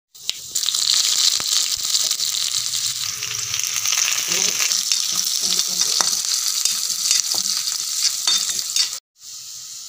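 Hot oil sizzling in a pan as curry leaves, sliced shallots and green chillies fry, with occasional clicks of stirring. The sizzle cuts off suddenly about nine seconds in.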